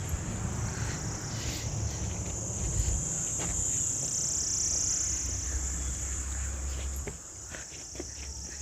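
Insects, cicadas or crickets, droning in a steady high-pitched chorus that swells in the middle, over a low rumble that stops about seven seconds in.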